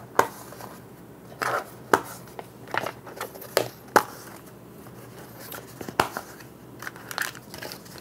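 Small hard plastic storage cases being opened and handled by hand: a scattered series of sharp clicks and knocks as lids pop open and cases are set down, the loudest about four seconds in, with light rustling between.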